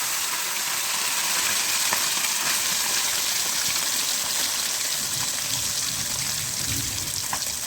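Small puti fish (pool barb) frying in hot oil: a loud, steady sizzle with scattered small crackles and spits.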